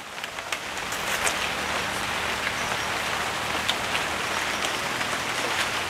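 Light drizzle falling: a steady hiss with scattered drop ticks.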